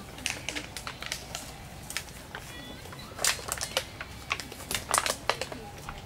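Parakeet pecking and picking at tree bark: a run of irregular dry taps and crackles, the loudest coming in clusters about three seconds in and again near the end.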